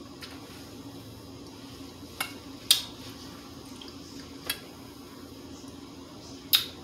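Four short, sharp clicks from a glass and straw as a thick, frozen-fruit protein shake is sipped, over a steady low hum.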